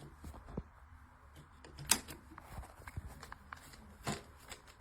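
Scattered sharp plastic clicks and handling knocks from a hair dryer, two of them louder about two and four seconds in, with no motor or fan starting: the dryer is dead and won't turn on.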